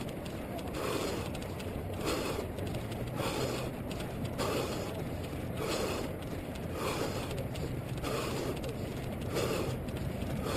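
A runner's rhythmic breathing in time with his stride, about one breath every three-quarters of a second, over the steady patter of running footfalls on the road.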